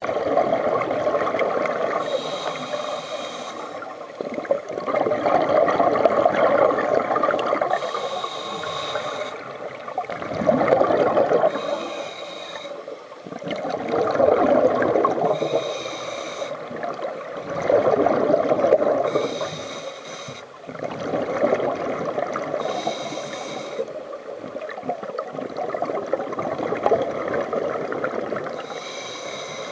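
Scuba breathing through a regulator, heard underwater: a short hissing inhale alternates with a longer, louder burble of exhaled bubbles, about one breath every three to four seconds.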